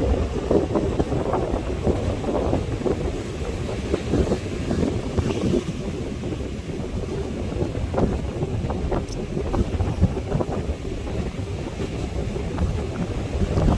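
Strong sea wind gusting and buffeting the microphone in an irregular, rumbling rush, with the sound of ocean waves underneath.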